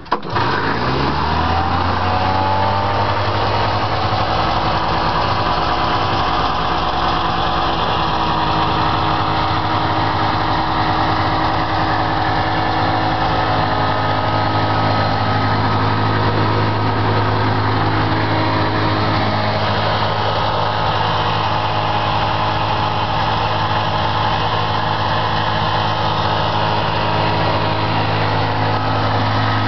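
Yamaha 340 two-cylinder two-stroke engine of a 1977 Sno*Jet SST snowmobile, pull-started. It catches right at the beginning, revs up briefly, then settles into a steady idle.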